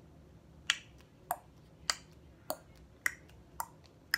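Finger snapping: seven sharp snaps in a steady rhythm, a little over half a second apart.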